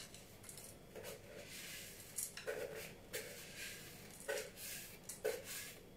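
Spatula scraping buttered speculoos biscuit crumbs out of a plastic bowl into a metal pastry ring: faint, soft scrapes and crumb patters, a few short ones.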